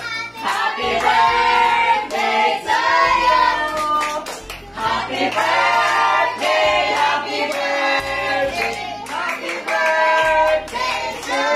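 A group of children and adults singing a birthday song together, with hand clapping.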